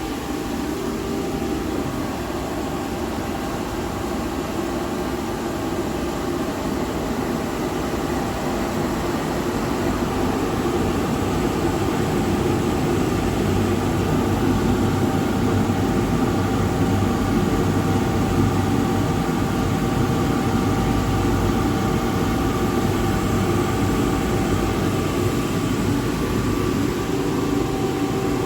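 Plant-room gas boiler burner firing: a steady rushing hum of fan and flame with a few faint steady tones, growing slightly louder over the first ten seconds or so.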